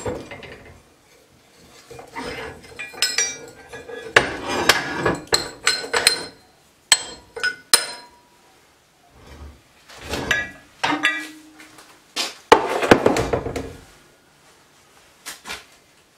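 Metal parts clanking and clinking as a suspension control arm and its rubber-metal bushings are handled and set into a bench press: irregular clusters of knocks and taps, some with a brief metallic ring, the loudest a little after the middle.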